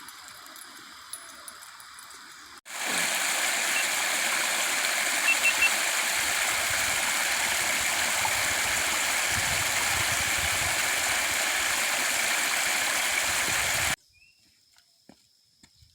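Stream water rushing, a steady even rush that cuts in suddenly about three seconds in and stops just as suddenly near the end. Before it there is a much quieter outdoor background.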